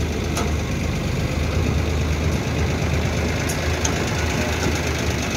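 Eicher tractor's diesel engine running steadily, with a low, even engine note.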